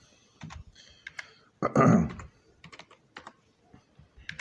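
Irregular keystrokes on a computer keyboard as a web address is typed, with a brief louder sound about two seconds in.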